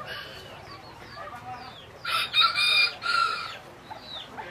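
A Serama rooster crows once, a short, fairly high crow starting about two seconds in and lasting just over a second. Faint short falling chirps sound in the background.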